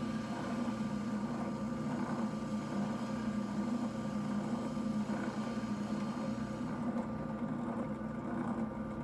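Benchtop spindle sander running with a steady hum as its spindle sands the curved edge of a wooden board; the sound cuts off abruptly at the end.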